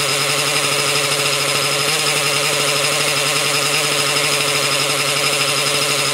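O.S. .61 SX two-stroke glow engine in an RC helicopter running steadily at a constant speed, turning the main and tail rotors on the ground.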